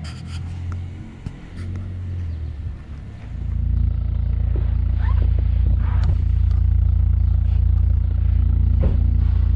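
Proton Waja's aftermarket S-Flow exhaust with extractors running. For about three seconds it is heard from farther off as a wavering low rumble, then it is heard close up at the tailpipe as a loud, steady, deep drone.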